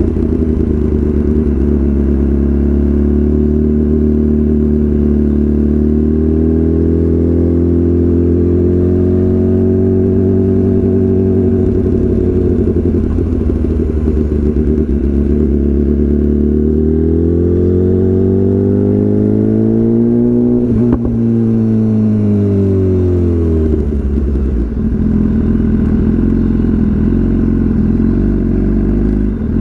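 BMW S1000RR inline-four engine running through a full Akrapovič exhaust. Its pitch holds steady, climbs slowly over several seconds past the middle, then drops back, with one brief knock at the top of the climb.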